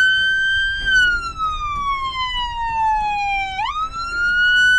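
Electronic police siren sounding from the Ford police car's front siren speaker in a wail: one tone that falls slowly, then sweeps quickly back up about three and a half seconds in and holds.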